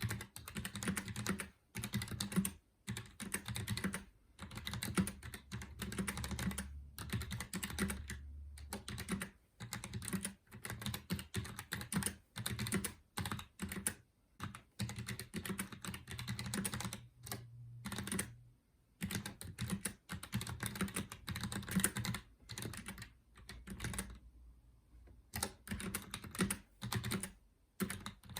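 Roccat Vulcan 120 AIMO mechanical gaming keyboard, with Roccat Titan switches, being typed on quickly: dense runs of key clicks in bursts, broken by short pauses.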